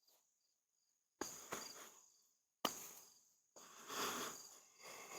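Crickets chirring steadily and faintly, broken by three sharp knocks about a second into the sound and again a second later, then a longer stretch of rustling near the end.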